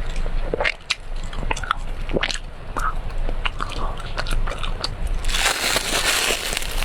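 Close-up eating sounds of brown sugar cake: biting and chewing with many small, sharp, crunchy clicks. A louder burst of noise comes about five seconds in and lasts over a second.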